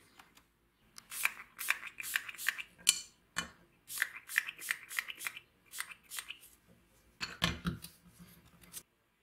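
Hand pump spray bottle squirting liquid onto the pivot joint of rusted pliers: many quick squirts, a few a second, with short pauses between runs.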